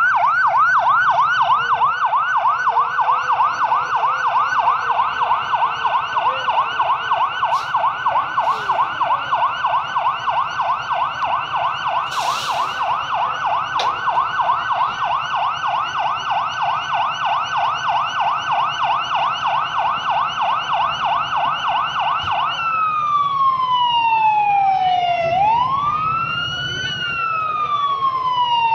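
Emergency vehicle's electronic siren in a rapid yelp, switching about three-quarters of the way through to a slow wail that falls, rises and falls again.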